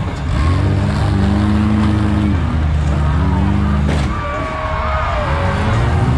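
Demolition derby car engines revving hard, their pitch rising and falling repeatedly, with one sharp bang about four seconds in.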